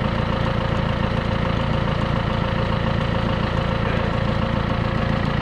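John Deere tractor's diesel engine running steadily with the PTO engaged, driving a roller pump on a homemade sprayer.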